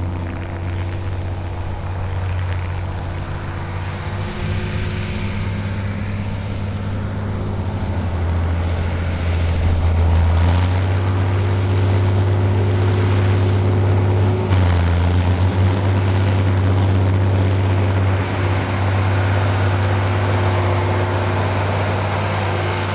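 Ford 7810 Generation III tractor's six-cylinder diesel working hard under load, pulling heavy trailed offset discs through hard stubble: a steady, loud engine drone that grows louder as the tractor approaches. The engine note pulls down briefly about two-thirds of the way through, then recovers.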